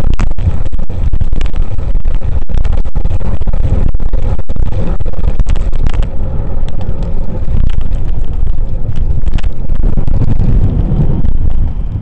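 Loud wind rumble on a bicycle camera's microphone while riding fast alongside car traffic, with road noise mixed in; it eases off about eleven seconds in as the bike slows.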